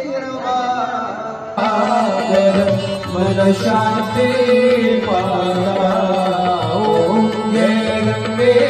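Indian devotional music with singing, of the kind sung at the Ganga Aarti. About a second and a half in, the sound changes abruptly and grows fuller, as at a cut.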